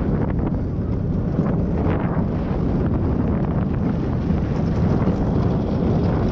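Wind buffeting a GoPro's microphone over the steady low rumble of a luge cart rolling down the track.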